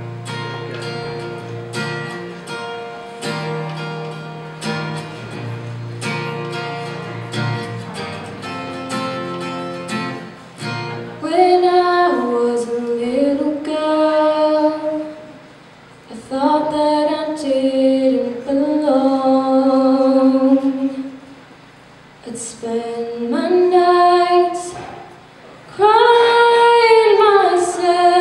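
Acoustic guitar playing a chord pattern on its own, then a woman starts singing over it about eleven seconds in, in long held notes that slide between pitches.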